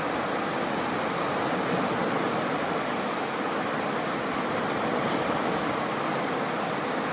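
Small ocean waves washing onto a beach, a steady continuous hiss of surf with no single breaker standing out.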